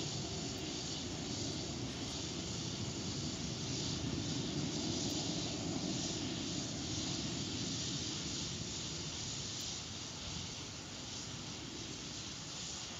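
Astra Rocket 3.3's five-engine first stage firing in ascent, heard from far below as a steady rushing rumble that eases a little near the end.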